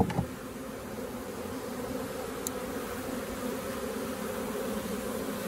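Honeybees from a freshly hived swarm humming steadily as they fly around the hive and fan at the entrance, which the beekeeper reads as the sign that the queen is inside. A brief sharp click comes right at the start.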